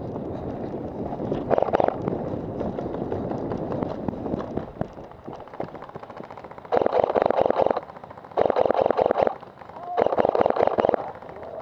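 Airsoft gun firing on full auto in three bursts of about a second each, in the second half, with a short burst earlier on.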